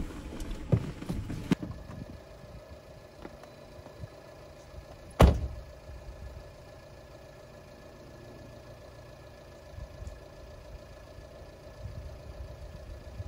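A car door shutting with a single loud thud about five seconds in, after a few lighter clicks and knocks near the start. Between them there is only a faint steady background.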